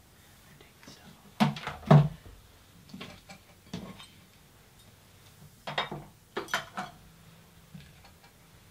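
Scattered sharp knocks and clatters. Two loud ones come close together about one and a half to two seconds in, and a quicker cluster comes around six seconds in.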